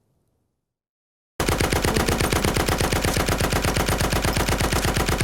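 Automatic machine gun firing: after about a second and a half of silence, a sudden long burst of rapid, evenly spaced shots that keeps going without a break.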